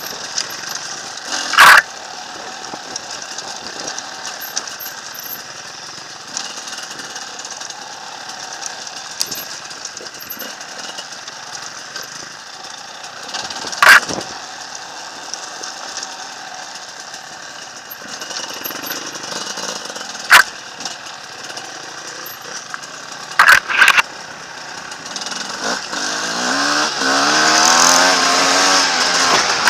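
Enduro dirt bike engine running over a steady rush of wind and trail noise while riding a rocky trail, cut by a few sharp, loud knocks. Near the end the engine revs up, its pitch rising.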